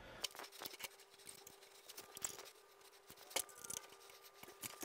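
Faint scattered clicks and light taps of hands working on the metal longarm frame and its tracks, with one sharper click about two-thirds of the way through, over a faint steady hum.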